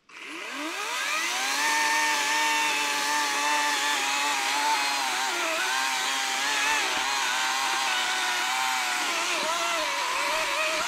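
Battery-powered electric chainsaw starting up with a whine that rises to full speed over about a second and a half, then cutting into the base of a hemlock trunk, its pitch dipping several times in the second half as the chain meets the wood.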